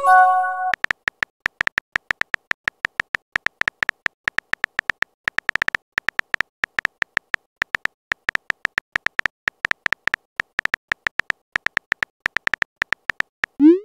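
Messaging-app sound effects: a short chime of several tones as a message is sent, then rapid phone keyboard typing clicks, several short sharp ticks a second. A rising swoop near the end begins the next send sound.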